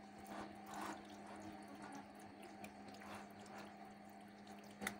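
Faint wet squelching of beef liver chunks being stirred through a yogurt and vinegar marinade with a spatula in a glass bowl, in soft irregular strokes, over a low steady hum.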